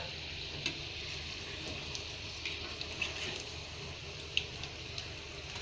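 Roll kababs deep-frying in a wok of hot oil: a steady sizzling hiss with a few small pops and crackles.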